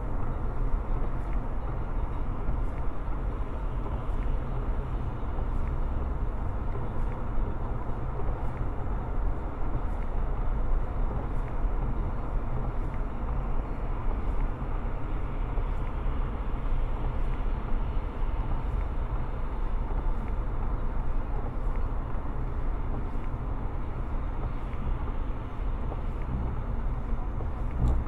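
Steady road noise of a car cruising at highway speed, heard inside the cabin: a constant low rumble with tyre hiss from wet pavement.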